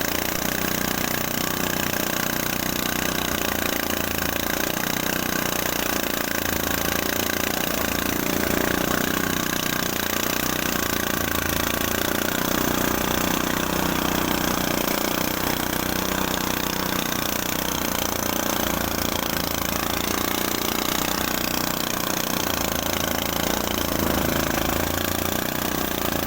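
Engine-driven rice threshing machine running steadily, a constant mechanical din at an even level.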